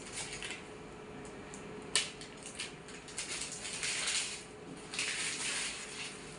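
Plastic medical packaging being handled and opened: crinkling and rustling in uneven patches, with a sharp click about two seconds in.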